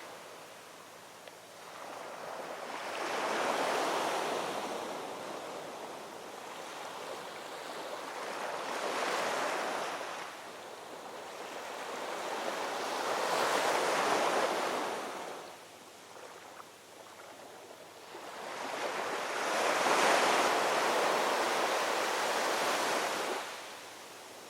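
Ocean waves rolling in: four surges of surf, each swelling and dying away over a few seconds. The last one is the loudest.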